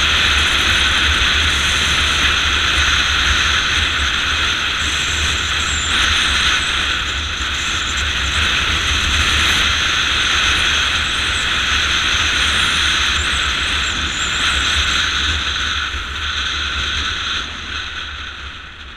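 Motorcycle riding at speed: steady engine and road noise mixed with wind buffeting on a bike-mounted camera. The noise falls off somewhat near the end.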